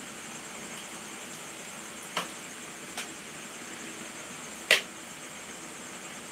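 Steady low hiss of room tone broken by three short sharp clicks, the last and loudest nearly five seconds in.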